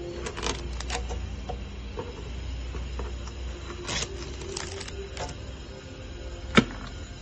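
Hands handling a Ninja electric grill's plastic housing and a loose plastic sheet: scattered clicks and rustles, with one sharp click about six and a half seconds in, over a steady low hum.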